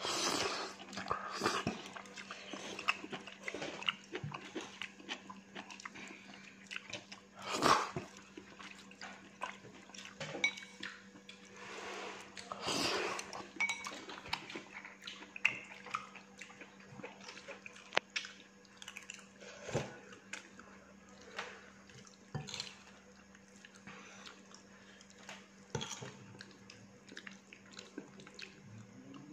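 Chopsticks and a spoon clicking and scraping against a ceramic bowl of fried noodles, with scattered eating sounds, over a steady low hum.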